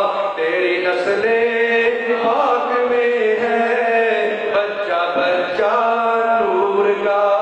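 A man's voice chanting devotional verse in long, drawn-out notes, carried on the microphone.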